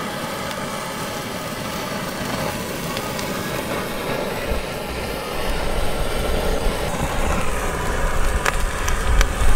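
Handheld butane torch running with a steady hiss as it sears pork belly frying in a pan, with a couple of sharp clicks near the end.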